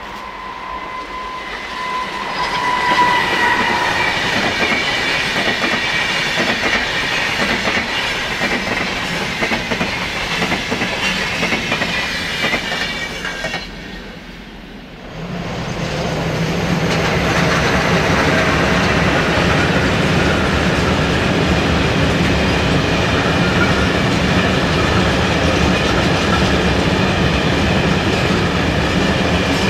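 SBB Re 460 electric locomotive and IC 2000 double-deck coaches passing at speed, with a high whine at first and the rush of the coaches fading away. After a break about halfway, a freight train of open wagons passes close by with a steady, loud rumble and clatter of wheels on the rails.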